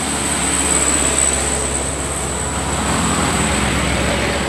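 A heavy truck passing with its engine running, over steady road traffic noise.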